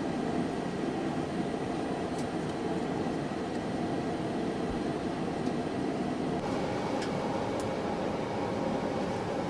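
F-22 Raptor turbines (its APU or F119 jet engines) running steadily on the ground during startup. There is an even rushing noise with a faint, steady high whine, and a few faint ticks.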